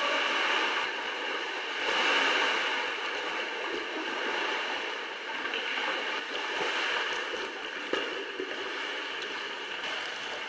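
Sea water washing and lapping in a sea cave around kayaks, with the small splashes and drips of paddle strokes.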